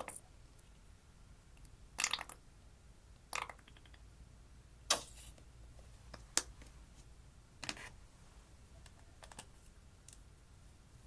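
Slime being worked by hand, giving short sticky clicks and crackles every second or two.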